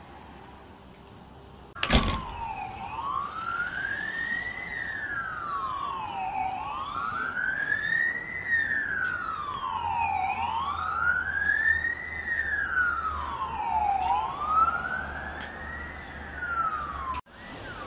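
Emergency vehicle siren sounding a slow wail, rising and falling about every four seconds. It starts suddenly about two seconds in and cuts off abruptly near the end.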